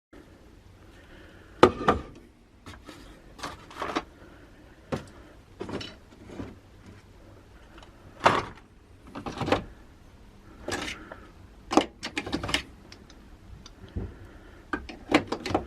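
Hand tools and metal objects being handled, giving irregular clinks and knocks about once a second, some louder than others.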